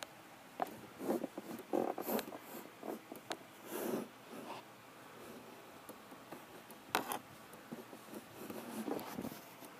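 Handling noise close to the microphone: irregular scrapes, rustles and taps as the phone is moved about, with one sharp click about seven seconds in.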